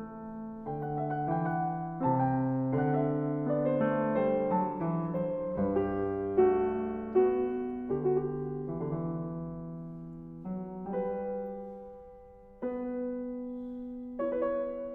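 Background piano music: slow chords and notes on a piano, one chord fading out and a new one struck near the end.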